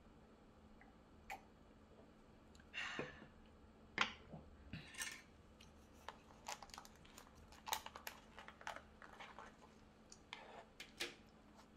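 Light, irregular clicks, taps and brief scrapes of plastic takeout bento containers and utensils being handled, with a sharper knock about four seconds in, over a faint steady hum.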